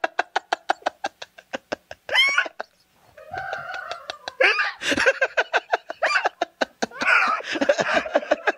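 A man laughing hysterically in fast, clipped pulses, about seven a second. The laugh breaks off briefly, then comes back in louder, higher-pitched outbursts around the middle and near the end.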